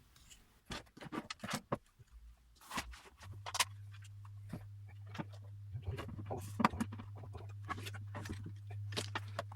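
Handling noise from microphone equipment being unpacked and handled: scattered clicks, taps and rustles. A steady low hum comes in about three seconds in and continues.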